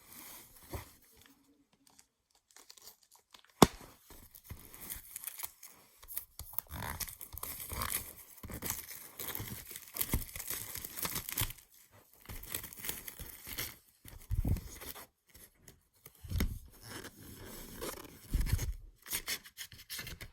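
Plastic wrapping on a CD case being torn and crinkled off in irregular rustling bursts, with a single sharp click a few seconds in.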